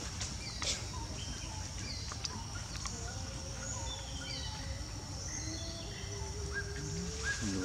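Outdoor woodland ambience: birds chirping with short falling notes and trills over a steady high insect drone.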